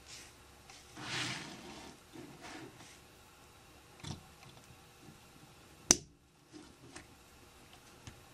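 Small plastic Lego pieces being handled and pressed together: a soft rubbing of fingers on plastic about a second in, a few light clicks, and one sharp snap about six seconds in as the smokestack piece clicks onto the train engine.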